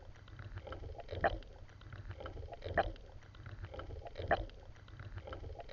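Rhythmic swimming strokes through water: a splashing stroke about every second and a half, over a low rumble.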